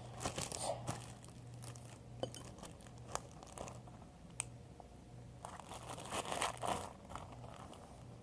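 Plastic bag crinkling and rustling as homemade slime is put into it, in scattered crackles with a busier stretch about six seconds in.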